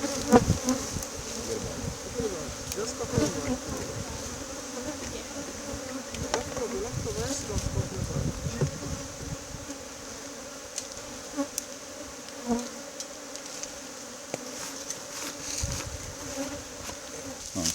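Honeybees buzzing in a steady hum around an opened hive, with occasional knocks and handling thumps.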